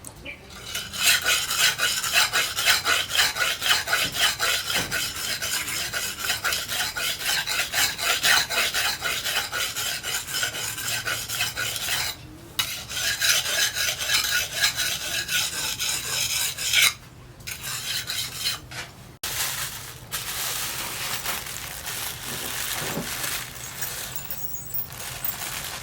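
Steel knife blade rubbed hard against an abrasive in rapid back-and-forth strokes, several a second, with two short pauses. Over the last few seconds the strokes give way to a smoother, less even rubbing.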